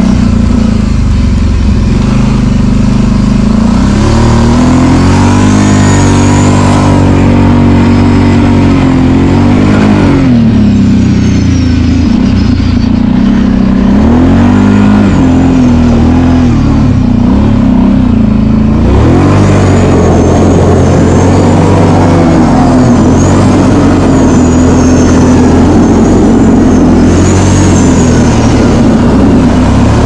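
Kawasaki Brute Force 750 ATV's V-twin engine revving up and down, its pitch rising and falling again and again while it is ridden.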